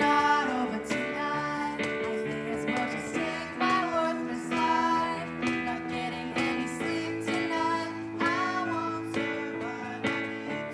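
A girl singing a song to strummed acoustic guitar, with sustained keyboard chords underneath.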